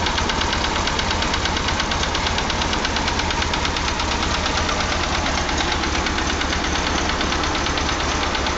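Farmall Cub's four-cylinder flathead engine, freshly rebuilt with new piston rings and bearings, running steadily with a fast, even beat of firing pulses.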